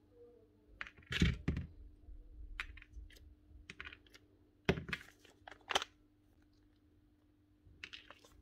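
Scattered light clicks and a few louder knocks of small metal parts as a DeWalt impact driver's quick-release bit holder is worked and taken apart by hand. The bit holder is this driver's fault.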